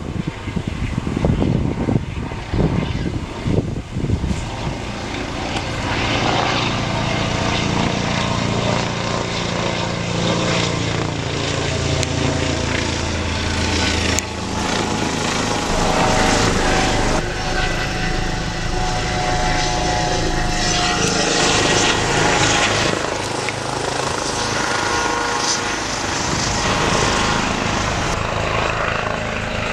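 Police helicopter flying overhead, its rotor beating steadily with an engine whine over it, a little louder after the first few seconds.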